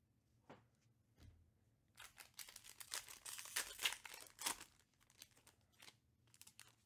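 Foil wrapper of a Panini Prizm UFC trading-card pack being torn open by hand. A dense tearing and crinkling burst runs from about two seconds in to nearly five, then a few scattered crinkles as the wrapper is handled.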